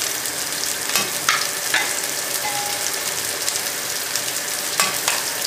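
Julienned carrots, green peppers and onions sizzling steadily in hot oil in a frying pan, with a few sharp clicks, about a second in and again near the end.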